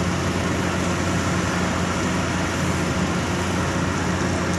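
Steady rushing background noise with a constant low hum underneath.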